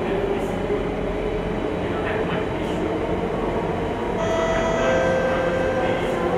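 Singapore MRT Circle Line train running in the tunnel, heard from inside the carriage as a steady rumble of wheels and running gear. A steady high whine of several tones joins about four seconds in.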